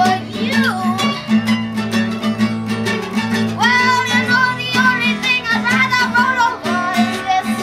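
Live acoustic blues band playing, with plucked guitar over steady low notes and a voice singing a melody that swells and wavers about halfway through.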